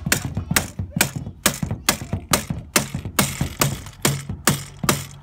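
Rubber mallet striking the end of an aluminum roof-rack crossbar, a steady run of blows about two a second, tapping the bar into its base on the roof rails.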